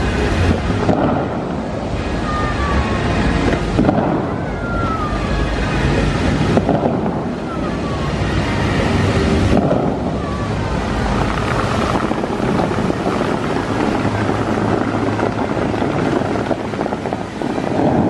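Bellagio fountain water jets spraying and splashing back into the lake in a loud, steady rush, with sudden blasts every few seconds as new rows of jets shoot up.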